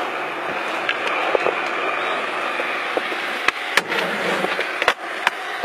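Skateboard wheels rolling steadily over smooth concrete. From about three and a half seconds in come a handful of sharp clacks as the board and trucks pop and hit a concrete ledge and land.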